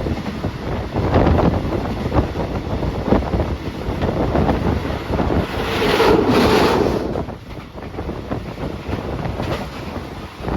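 Wind buffeting the phone's microphone over the rumble and irregular clatter of a moving train, with a louder rush of noise about six seconds in.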